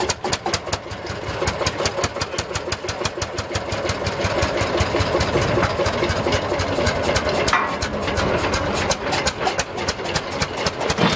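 Lanz Bulldog tractor's single-cylinder two-stroke engine running, each firing stroke a sharp beat in a rapid, even rhythm.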